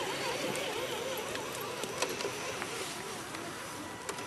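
Electric motor and gearbox of a radio-controlled scale crawler truck whining as it crawls, the pitch wavering up and down several times a second, with a few light clicks. The whine fades out about three seconds in.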